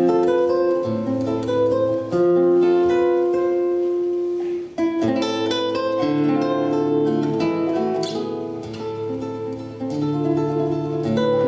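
Instrumental break in a French chanson, led by a plucked string instrument such as a guitar playing the melody, with a short pause about four and a half seconds in before the next phrase.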